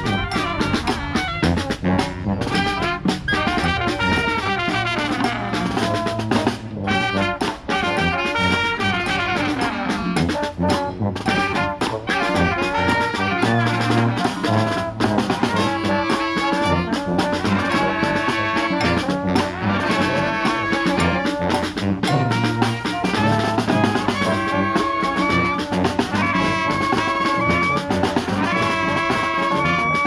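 Brass band playing outdoors: trumpets and trombones over a sousaphone bass line and snare drum, the drums keeping a steady beat.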